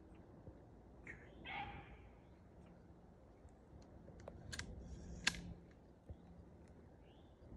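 Beagles baying on the track, a few short pitched bawls about a second in and a fainter one near the end. A sharp crack, the loudest sound, comes a little past halfway, with a smaller click just before it.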